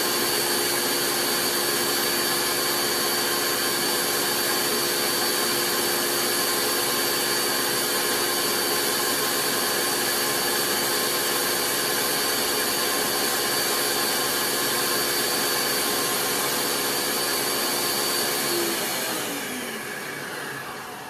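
Kitchen blender motor running steadily at full speed, then switched off near the end, its whine falling in pitch as it spins down.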